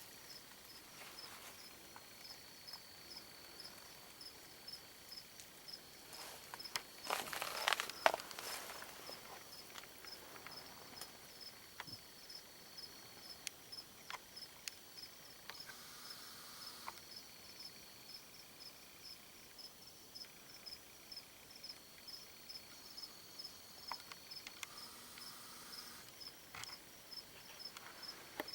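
Night insects calling steadily, a high continuous trill with a regular high pulsing chirp over it. A brief louder rustling clatter comes about seven to eight seconds in, with scattered faint clicks.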